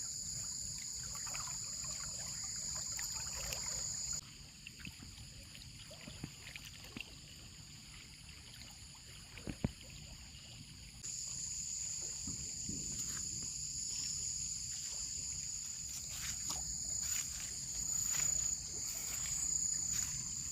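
A chorus of forest insects, crickets or cicadas, trilling steadily at a high pitch. The chorus stops about four seconds in and starts again about eleven seconds in. A stream's low, steady rush and a few faint clicks sit beneath it.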